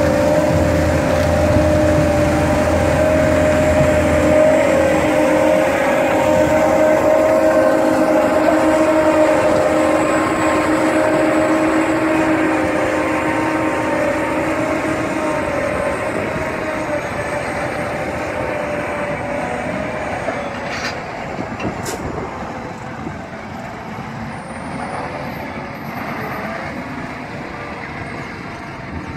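ROPA self-propelled sugar beet harvester running as it lifts beet: a steady machinery drone with a strong, even whine. About halfway through the whine drops away and the drone grows gradually fainter.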